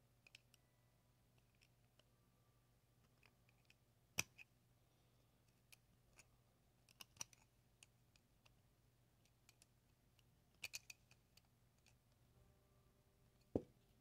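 Faint, scattered clicks and ticks of a screwdriver tightening the frame screws of a small fan motor, with sharper clicks about four seconds in, around seven and eleven seconds, and a duller knock near the end.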